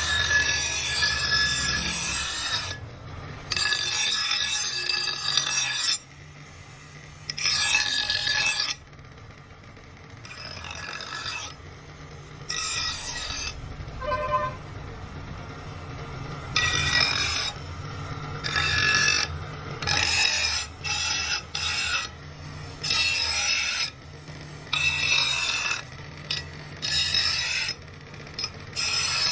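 A steel cleaver blade being worked with an abrasive tool, rasping in repeated passes of about one to two seconds, with short pauses between them.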